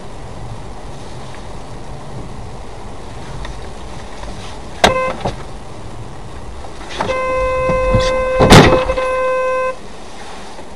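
A car horn blares for about three seconds, and a loud crash, a vehicle collision, lands in the middle of it. About five seconds in there is a sharp knock with a brief horn toot. Steady road noise runs underneath.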